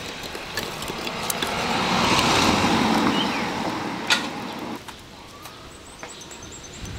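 A road vehicle passes by: its noise swells, peaks a couple of seconds in and fades away. A single sharp click sounds about four seconds in.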